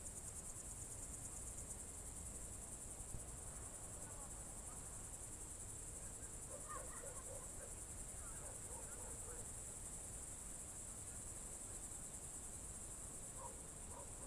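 Crickets trilling in a continuous, high, finely pulsed chorus. A few faint short distant sounds come through about halfway and again near the end.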